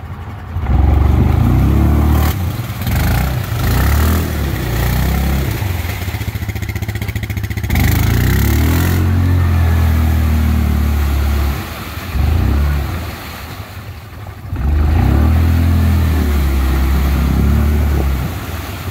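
Yamaha Kodiak 700 ATV's single-cylinder engine revved hard in several long bursts, dropping back between them, as the wheels spin while it sits stuck in deep mud.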